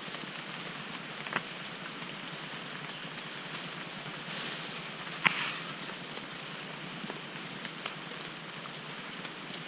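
Steady rain falling, a continuous hiss dotted with small drop hits. Two sharper taps stand out, about a second in and again around the middle; the second is the loudest.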